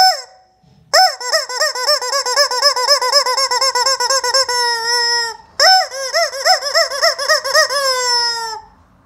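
Yellow rubber screaming chicken toy squeezed by hand: a brief squeak, then two long squawks of about four and three seconds that waver rapidly in pitch and slide down as each one dies away.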